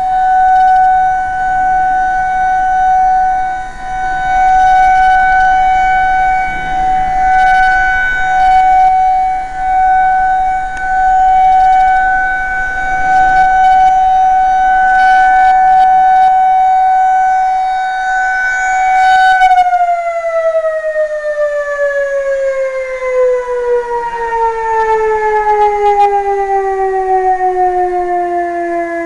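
Outdoor warning siren sounding a steady high tone, its loudness swelling and fading as the rotating head turns. About two-thirds of the way through it shuts off and winds down, the pitch falling steadily.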